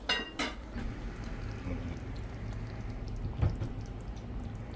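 Two quick clinks of cookware at the start, ringing briefly, then a low steady hum with a dull knock about three and a half seconds in.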